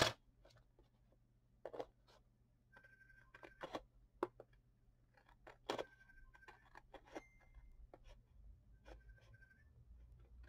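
Scissors snipping through a sheet of sample wallpaper: faint, scattered snips with pauses between them.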